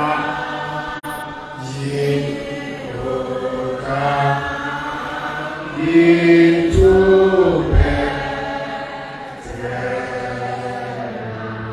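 A group of voices singing a slow, chant-like church song with long held notes, loudest about halfway through.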